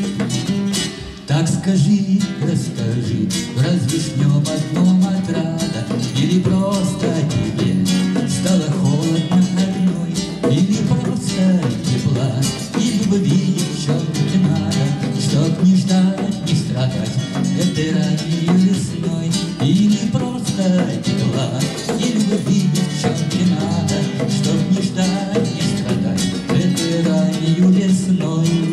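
Classical guitar strummed together with bongos played by hand, a lively accompaniment.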